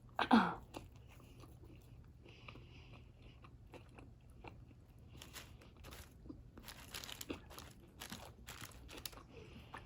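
Close-up chewing and biting of a toasted chicken sub on Italian herbs and cheese bread, with soft crunches and wet clicks of the mouth. A short vocal sound comes at the very start.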